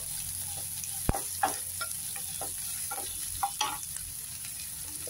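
Chopped onions sizzling in hot oil in a kadai while a wooden spatula stirs and sautés them. The spatula scrapes and taps against the pan in a string of short strokes over the steady sizzle, with the sharpest knock about a second in.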